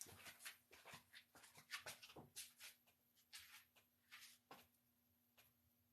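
Near silence: faint scattered clicks and rustles, thinning out after about two and a half seconds, over a faint steady hum.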